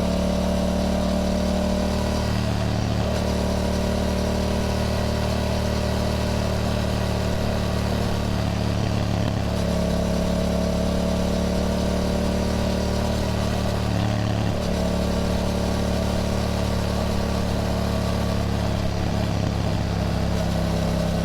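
Yamaha MT-07's parallel-twin engine running steadily while riding, its note shifting briefly a few times.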